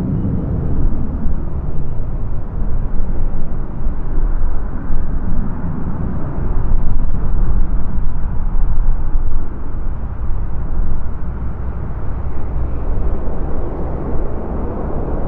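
Jet engines of a United Airlines Boeing 777-200 making a loud, low, unpitched rumble that swells and eases a little.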